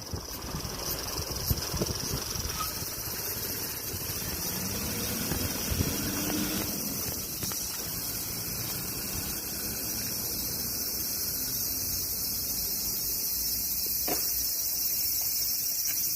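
A steady, unbroken chorus of summer insects chirring high in pitch, with irregular low rumble from wind on the microphone underneath.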